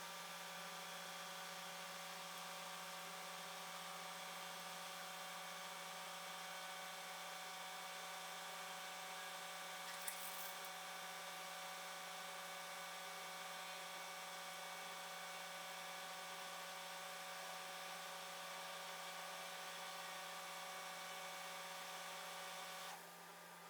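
A steady machine hum of several fixed tones, like a small motor running, unchanging until it cuts off near the end; a single click about ten seconds in.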